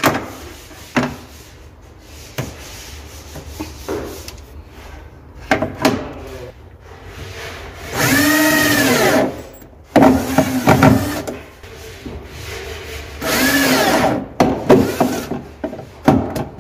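Cordless drill driving screws through a steel drawer slide into a melamine cabinet side, the motor spinning up and winding down in several short bursts in the second half. Before that, clicks and knocks of the metal slide being handled and set in place.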